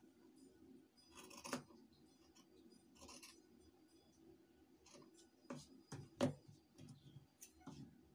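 Scissors cutting through fabric: a few quiet, separate snips with pauses between them, the sharpest about six seconds in.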